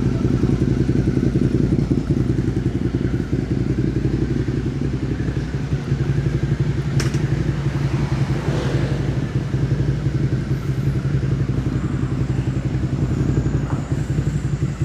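Suzuki SV650's V-twin engine idling steadily through an aftermarket exhaust. There is a single sharp click about halfway through.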